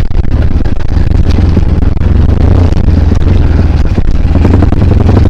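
KLX dirt bike's engine running steadily while under way on a trail, with a dense low hum.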